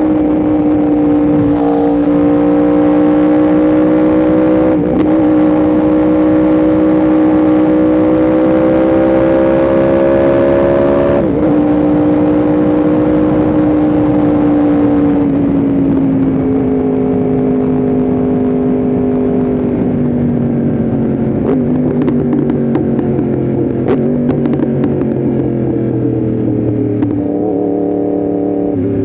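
Yamaha R1M's crossplane inline-four engine under way, pulling with slowly rising revs and two brief breaks a few seconds apart, then revs falling steadily as the bike slows. A rush of noise under the engine fades as it slows.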